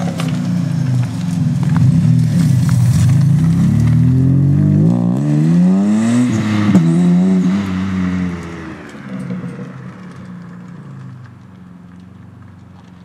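Turbocharged 2.7-litre V6 of a 2006 Hyundai Tiburon being revved: it runs loudly and unevenly, climbs in pitch to a peak about seven seconds in with a sharp snap at the top, falls back, and settles to a much quieter idle for the last few seconds.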